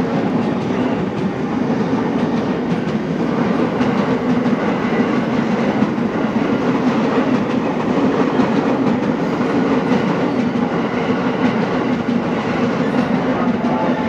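Electric commuter train running along the platform, a steady loud rumble with wheels clattering over the rail joints.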